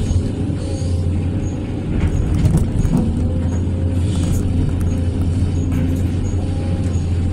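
Hydraulic excavator's diesel engine running steadily under load while the bucket digs and scoops soil, heard from the operator's cab.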